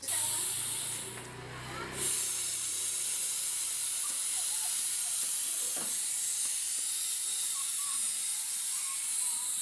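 Loud steady hiss of a pressurised spray or air jet, starting suddenly, easing briefly about a second in and coming back strongly at about two seconds.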